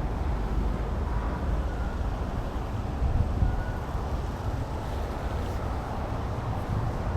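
Steady low outdoor rumble with no distinct events, the kind of background made by wind on the microphone and passing traffic.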